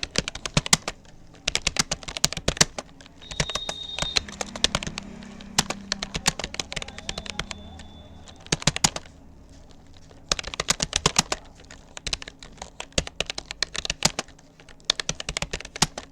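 Touch-typing on a Rapoo computer keyboard: fast runs of keystroke clicks broken by short pauses.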